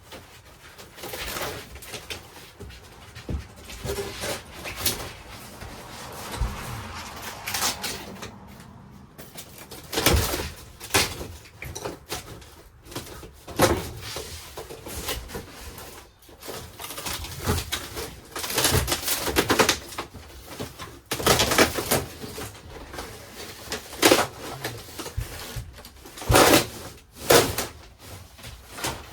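Irregular knocking, scraping and creaking of paneling and wooden framing being pried and pulled out of a vintage camper's interior wall by hand. The strokes come at uneven intervals, with several louder bangs in the second half.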